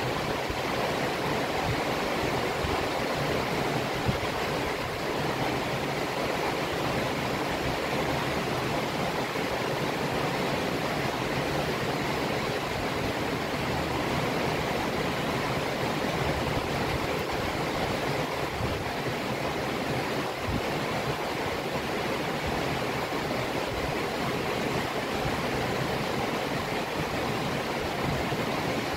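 Heavy rain falling steadily, an even wash of noise that holds the same level throughout.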